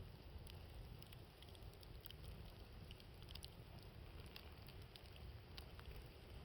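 Faint wood campfire crackling, with scattered sharp pops and ticks, over a low steady wind rumble on the microphone.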